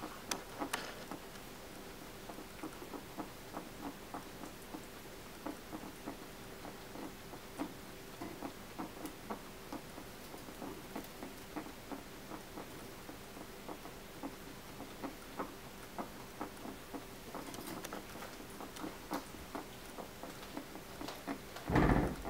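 Guinea pig with dental malocclusion crunching hard pellets, a few short irregular crunches a second. A louder knock near the end.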